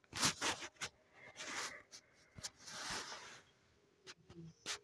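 Faint scattered taps and soft rubbing on a phone touchscreen as a drawing is selected and dragged.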